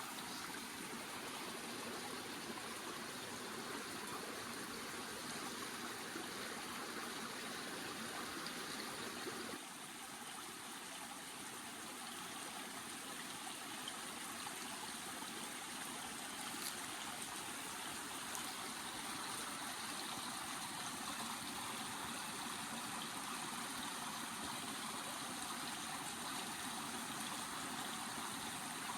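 Water running steadily in a stream, an even rushing sound that shifts slightly about ten seconds in.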